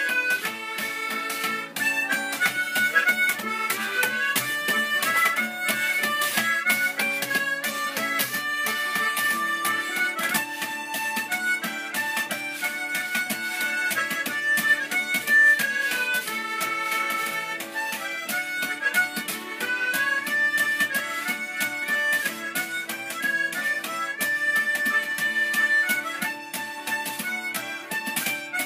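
Harmonica playing a lively folk tune, melody and chords together, with quick steady tapping on a cardboard box beaten as a drum.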